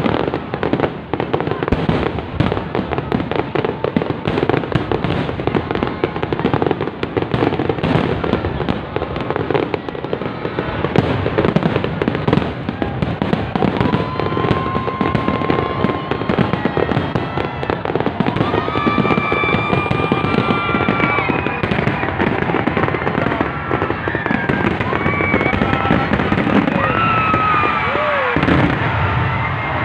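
Aerial fireworks display in a dense barrage: a continuous rapid rattle of bursts and crackling. From about halfway, high whistling tones sound over it.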